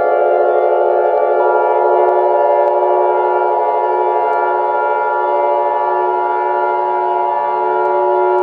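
Civil defense siren sounding a steady, multi-tone pitch, with a higher tone joining about a second and a half in.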